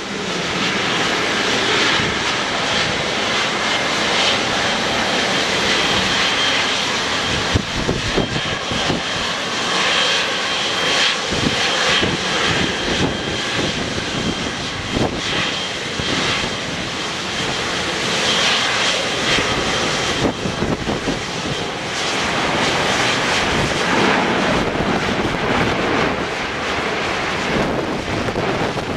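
Boeing 777-200LR's twin GE90 turbofan engines running at taxi power: a steady jet rush with a high whine.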